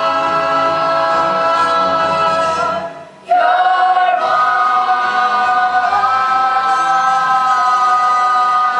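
A stage cast singing together in chorus, holding long notes; the voices break off briefly about three seconds in, then come back on a new, higher-lying held chord that is sustained through the rest.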